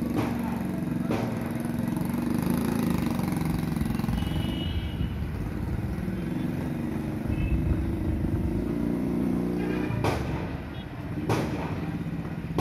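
Motorcycle engine running steadily, with a few sharp knocks about a second in and twice near the end.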